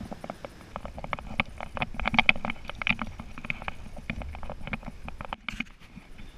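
Irregular light metallic clicks and clinks from the bosun's chair hardware (shackle, halyard and fittings), some close together and some spaced out, busiest in the middle.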